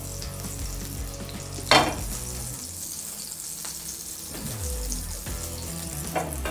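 Butter melting in hot oil in a non-stick frying pan on a gas burner, sizzling steadily. Near two seconds in there is one sharp knock as the pan is set down on the burner.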